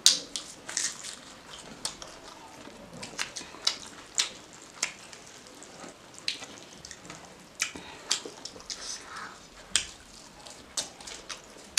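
Close-up wet chewing and lip-smacking of two people eating rice and pork curry with lettuce: irregular sharp mouth clicks and smacks, several a second at times.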